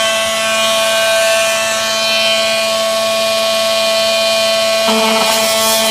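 Handheld electric edge cutter running with a steady high whine after spinning up, used to finish cutting through acrylic along the CNC-milled edge. About five seconds in, the tone changes as a second, lower tone joins.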